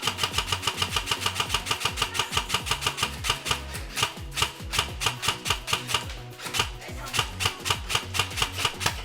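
Music with a fast, even beat of sharp percussive clicks over a stepping bass line, with two short breaks in the beat, about four and six seconds in.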